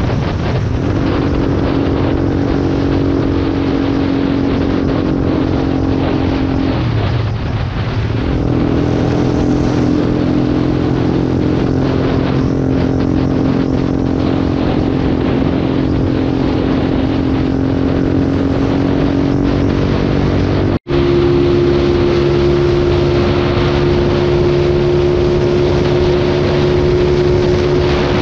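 Motorcycle engine running steadily at sustained highway speed, with wind rushing over the microphone. The engine note wavers and dips briefly about seven seconds in, then settles. After a sudden break about 21 seconds in, it comes back at a higher note.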